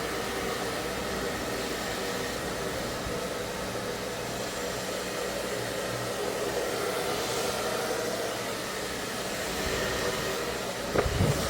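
Ionic hair dryer running steadily, a rush of blown air with a faint steady motor hum. Near the end there is a short cluster of loud knocks.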